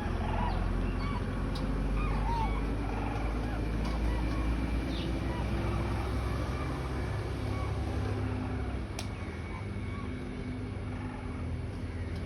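Faint bird calls, a few short chirps in the first seconds, over a steady low rumble.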